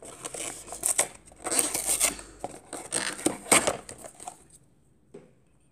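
Cardboard toy box being opened by hand: a series of rustling, scraping bursts and small clicks as the flap is pulled open, dying away about four seconds in.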